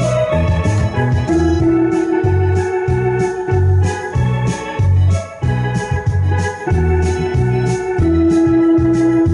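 Two-manual electronic home organ playing a tune: long held melody notes over sustained chords, with a bass that alternates between two notes in a steady pattern.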